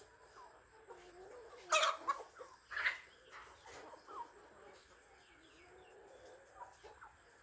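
Chickens clucking, a string of short soft calls with two louder, sharper calls about two and three seconds in.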